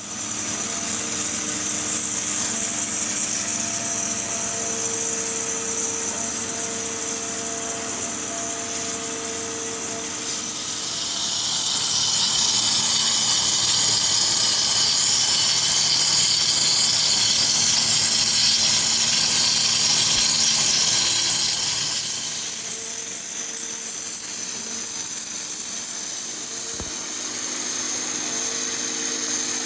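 Waterjet cutter slicing through a marble slab: a loud, steady hiss from the high-pressure jet, with a faint low hum under it. The hiss turns higher and brighter about a third of the way in and changes back about two thirds in.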